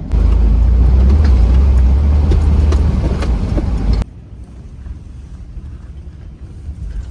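Off-road vehicle's engine running hard under load, a loud deep rumble with scattered knocks, which cuts off abruptly about four seconds in. After that, a quieter steady vehicle rumble.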